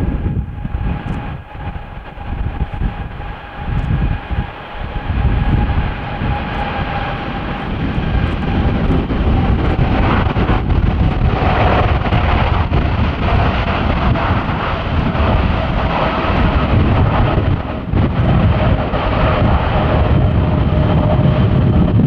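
Jet airliner engines running close by: a deep rumble under a steady whine that drops slowly in pitch, growing louder about ten seconds in.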